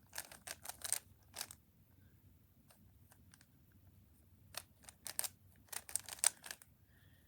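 Plastic puzzle cube's layers being turned by hand, a quick run of sharp clicking clacks in two spells: through the first second and a half, then again from about four and a half to six and a half seconds in.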